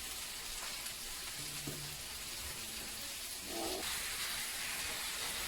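Chicken breasts sizzling in a hot frying pan on the stovetop, a steady hiss of spattering fat.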